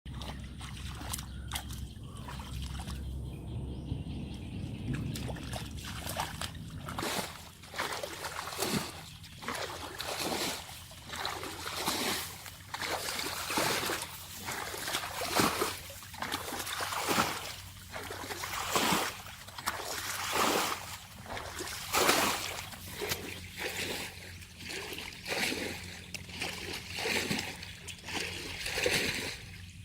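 Water splashing and sloshing in a steady rhythm, about one splash a second, as someone works through shallow water by hand. A low rumble fills the first several seconds before the splashing starts.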